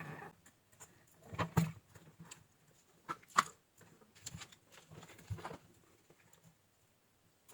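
Irregular clicks and knocks of things being handled on a workbench, with the sharpest ones about one and a half and three and a half seconds in, thinning out over the last second or two.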